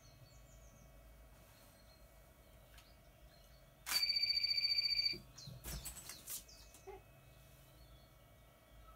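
A shrill, rapidly trilling ring at one steady pitch starts about four seconds in and lasts just over a second. It comes from an attention-getting noise-maker held up above the camera to make the dog look up. A few short knocks follow.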